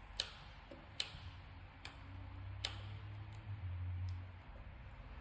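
Sharp ticks of a small screwdriver turning a terminal screw on an LED dimmer receiver as the wire is screwed down. About four clear clicks come under a second apart, with a low hum partway through.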